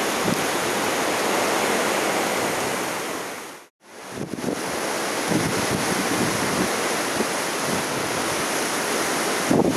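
Storm-driven surf rushing and breaking, with strong wind gusting on the microphone. The sound fades out completely for a moment about four seconds in, then comes back at the same strength.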